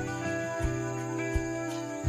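Gentle guitar background music, with two dull thuds of a hoe striking soil about a third and two-thirds of the way in.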